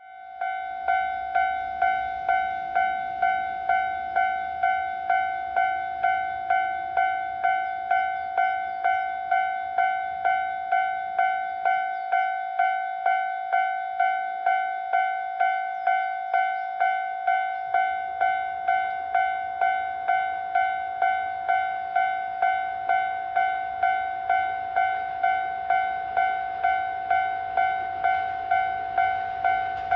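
Japanese railway level-crossing warning bell ringing its repeated electronic 'kan-kan' alarm, about three strikes every two seconds. The crossing is warning of an approaching train. A faint low rumble comes in about three-quarters of the way through.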